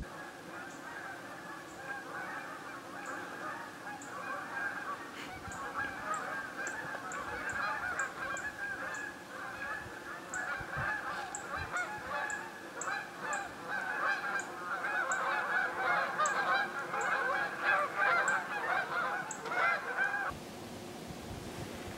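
A flock of birds calling, many overlapping calls in a dense, continuous chatter that stops abruptly near the end.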